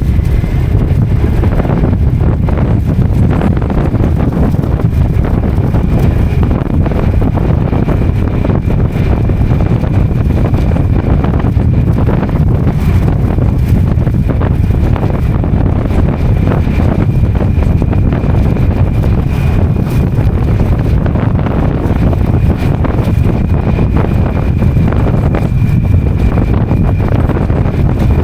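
Motorcycle riding at a steady speed: the engine runs under heavy wind buffeting on the microphone. A faint high steady whine comes in about a quarter of the way through.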